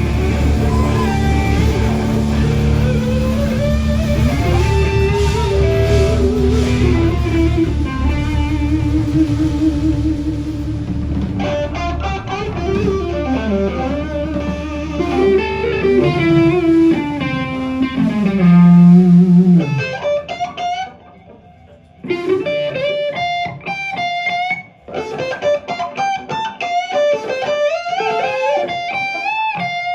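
Live blues-rock band playing, a lead electric guitar over bass and drums. About two-thirds of the way in the band drops out, leaving the electric guitar alone, playing bent, sustained phrases with short pauses between them.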